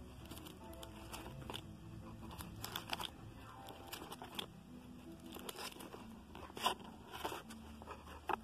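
Baseball cards in plastic penny sleeves being flipped through by hand in a cardboard box: a run of irregular plastic crinkles and sharp card ticks.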